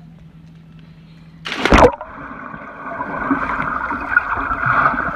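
Water rushing steadily after a sudden loud burst of noise about a second and a half in.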